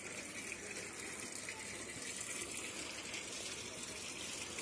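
Pump-driven garden fountain running: water falling and splashing steadily into its basin.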